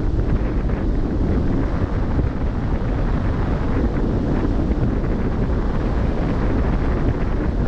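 Steady wind buffeting the microphone aboard a cruise ship at sea, a constant low rumbling rush with the wash of the sea beneath it.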